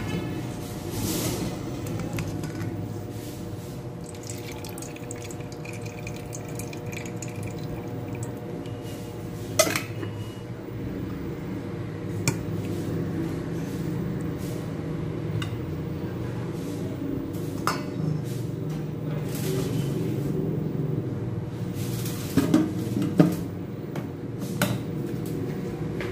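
A spoon and hands working in a stainless steel bowl of chicken marinade, scraping and knocking against the metal, with scattered sharp clinks of kitchenware, a cluster of them near the end. A steady low hum runs underneath.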